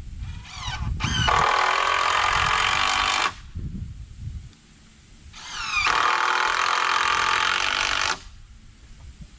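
Cordless drill driving screws into a 2x6 board, running in two bursts of about three seconds each a couple of seconds apart.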